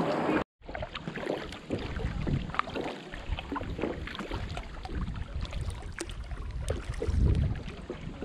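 Kayak paddling: irregular paddle splashes with scattered light knocks, under wind buffeting the microphone that swells near the end. The sound drops out abruptly for a moment about half a second in.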